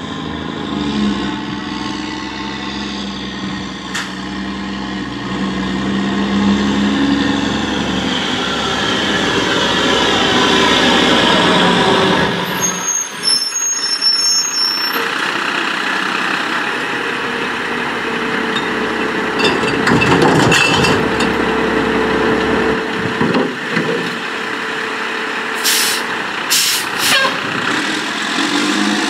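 Mack cab-over rear-loader garbage truck's diesel engine running as the truck drives up and stops, with a few short air-brake hisses near the end.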